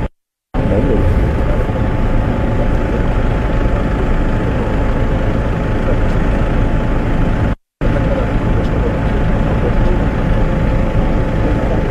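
Steady low engine rumble, like a heavy vehicle running at idle. It cuts out to silence briefly twice, once right at the start and once about seven and a half seconds in.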